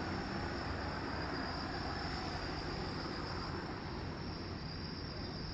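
Steady night-time outdoor background: a low, even rumble like distant traffic, with a steady high-pitched insect trill, likely crickets, running underneath. No firework bangs are heard.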